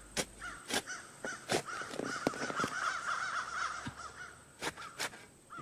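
Crows cawing repeatedly, with a flurry of shorter chattering calls in the middle.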